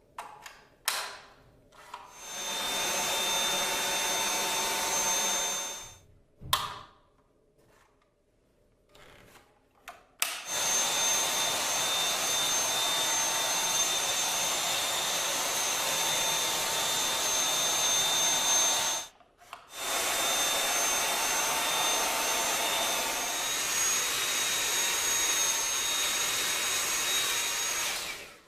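Vacuum cleaner motor running with a steady whine over a rushing hiss. It starts about two seconds in and stops about six seconds in, then starts again about ten seconds in and runs on, cutting out briefly near nineteen seconds. A few sharp knocks come in the quiet gaps.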